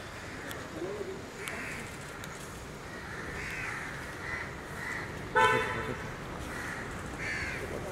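Street sounds: a short car-horn toot about five and a half seconds in, the loudest thing heard, and crows cawing several times.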